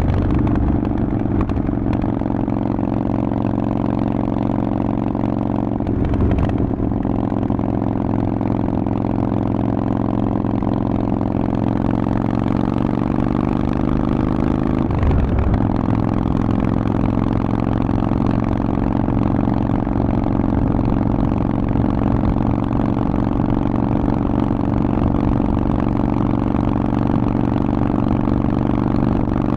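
Harley-Davidson Forty-Eight's air-cooled 1200 cc V-twin running through a Vance & Hines exhaust while the bike is ridden, a steady engine note with two brief breaks, about six and fifteen seconds in, where the pitch drops as if through gear changes.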